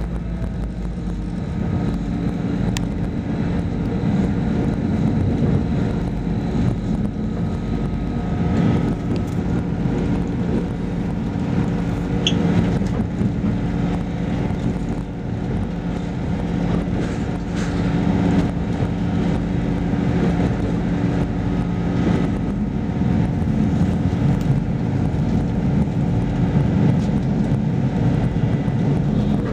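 Train running at speed, heard from inside the carriage: a steady rumble of wheels on track with a low, even drone underneath.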